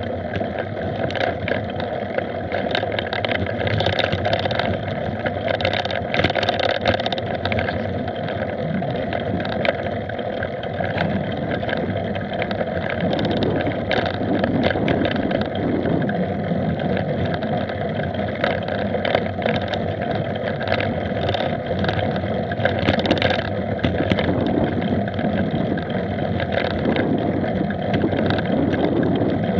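Mountain bike riding over a bumpy dirt track, heard from a camera mounted on the bike: a steady rush of wind and tyre noise with frequent irregular clicks and rattles from the bumps.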